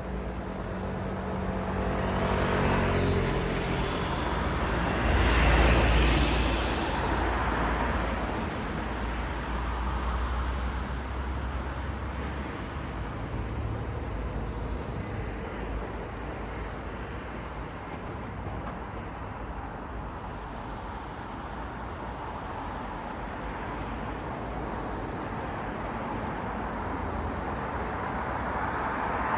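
City road traffic: cars passing one after another over a steady traffic hum, the loudest pass about six seconds in with a deep rumble, and another vehicle coming up near the end.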